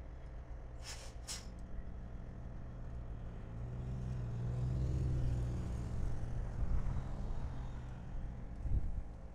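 Freight train flatcars rolling past with a steady low rumble that swells around the middle. Two short hissing bursts about a second in.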